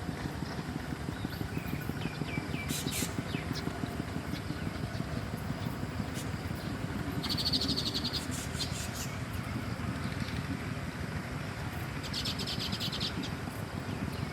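Wild songbird calls: a few short chirps, then two brief, rapid, high trills several seconds apart. A steady low rumble runs underneath.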